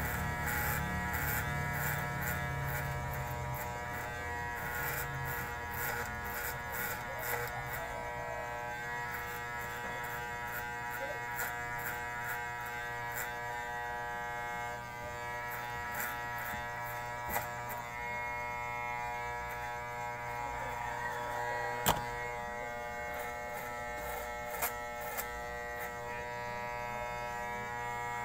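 Electric hair clippers buzzing steadily as they cut hair. A few short, sharp clicks break in, the loudest about two-thirds of the way through.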